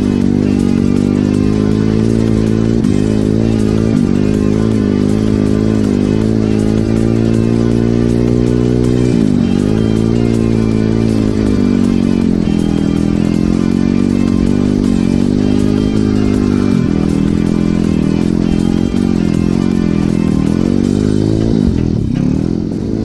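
Regulmoto Seven Medalist 150E pit bike's 150 cc four-stroke engine running under way at steady revs, heard from on the bike. Its pitch dips and climbs back several times as the revs change and gears are shifted.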